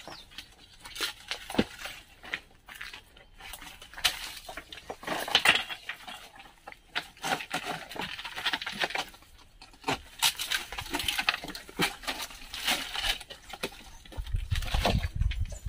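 Footsteps scrambling over loose rocks and scree, with irregular crunches and stones clinking against one another. A low rumble comes in near the end.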